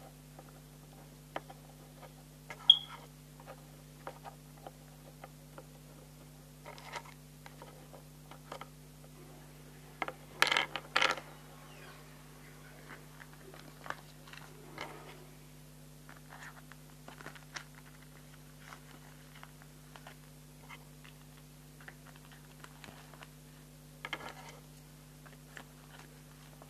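Close handling noise: scattered small clicks, taps and rustles of objects being picked up and moved right by the microphone, with a sharp click early and a louder clatter about ten seconds in, over a steady low electrical hum.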